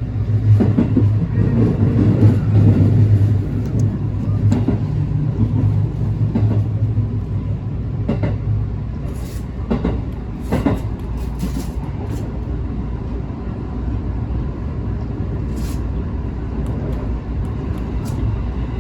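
Onboard running noise of a JR West 221-series electric train: a steady low rumble of wheels on rail, with a strong low hum that fades after about eight seconds. Several short sharp clicks and knocks come through in the middle.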